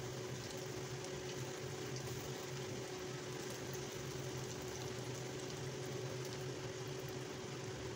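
Jalebi batter spirals deep-frying in hot oil: a steady sizzle with faint crackles, over a constant low hum.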